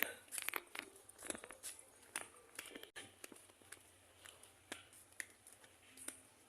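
Faint, scattered clicks and taps, with a few brief faint voices.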